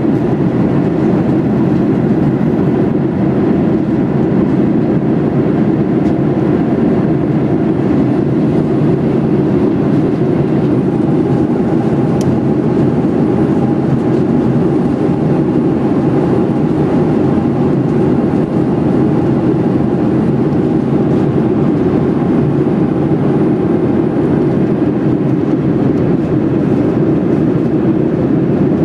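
Jet airliner cabin noise in flight: the steady, unbroken rumble of engines and airflow as heard from a window seat.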